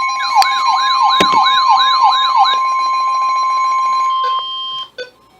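NOAA Weather Radio's 1050 Hz warning alarm tone, one steady loud tone that cuts off about four seconds in, signalling that a warning message is about to follow. For about two seconds near the start, a siren-like wail sweeping up and down a couple of times a second sounds over it.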